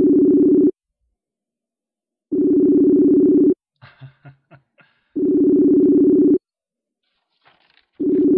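Facebook video-call ringback tone: a warbling two-note ring about a second long, repeating roughly every three seconds while the call goes unanswered. Three full rings sound, with a fourth starting near the end.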